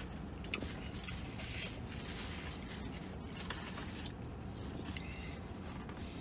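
Paper sandwich wrapper rustling and crinkling in short, scattered rustles as it is handled and opened, over a low steady rumble.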